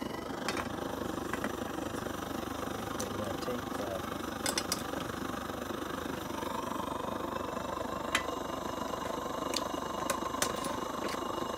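Vintage Primus 71 pressurised petrol stove burning with a steady rushing hiss, while a thin aluminium windshield and pot clink onto it several times. A steady tone joins the hiss about halfway through, as the pot goes over the flame.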